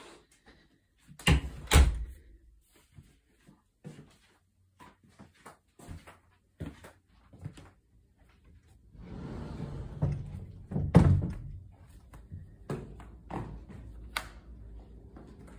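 Knocks and thuds of someone walking through a house: two loud thuds a little over a second in, a stretch of rustling, then another loud thud just after eleven seconds.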